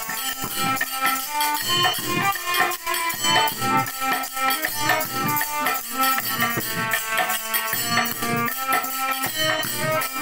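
Harmonium playing a melody over regular strokes of a two-headed barrel drum, with small hand percussion jingling along.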